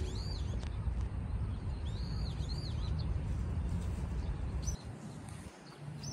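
Small birds chirping in short, arched calls, a few at a time, over a steady low rumble that drops away briefly near the end.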